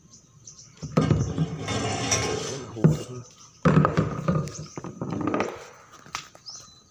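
A person's voice calling out in two stretches of about two seconds each, with a short pause between.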